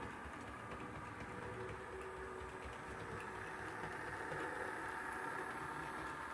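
Model railway railcar running along the track, its small electric motor and gears making a faint, steady whine.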